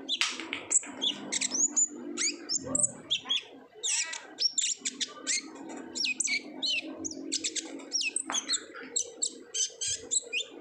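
Kolibri ninja sunbird singing rapidly and without pause: a dense string of high, thin chirps and quick sweeping notes, over a steady low hum.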